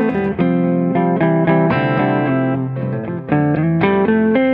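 Electric guitar, a Telecaster Deluxe-style guitar played through an AmS Hurricane 40 amplifier with a lightly driven tone. It plays a flowing phrase of single notes and chords, with a short break a little after three seconds.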